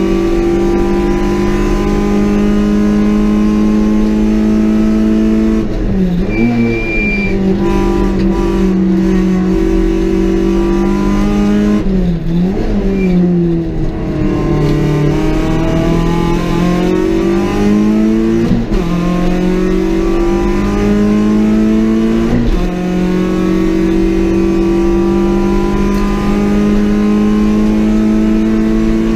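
Peugeot 206 XS rally car's four-cylinder engine heard from inside the cabin, running hard at high revs. Several times (about 6, 12, 18 and 22 seconds in) the pitch drops and then climbs back up as the car lifts and changes gear for bends.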